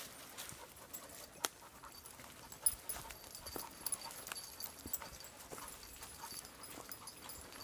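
Footsteps on a leaf-strewn dirt path: irregular footfalls and scuffs, with a dog panting.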